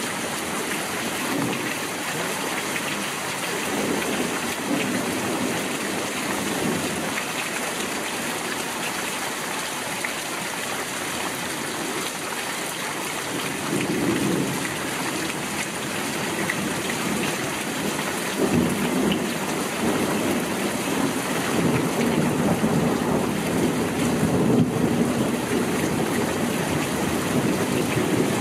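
Heavy monsoon downpour, a steady hiss of rain, with thunder rumbling low in several rolls. The longest and loudest roll builds through the second half.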